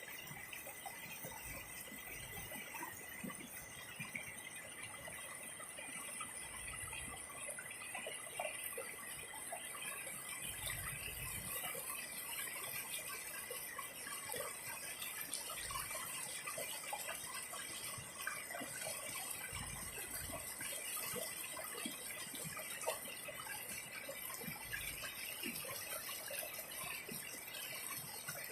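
River water flowing steadily, a constant babbling rush with small splashes and gurgles, and a soft low thud now and then.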